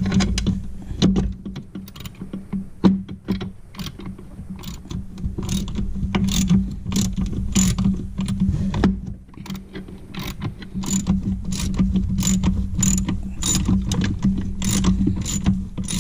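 Ratchet with a deep-well socket clicking in runs of quick clicks as a chaincase bolt is tightened down, the clicks coming most steadily in the second half. A steady low hum runs underneath.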